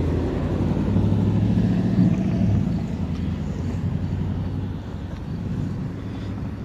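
A motor vehicle going by on the road, its low engine rumble swelling about a second or two in and fading away over the next few seconds.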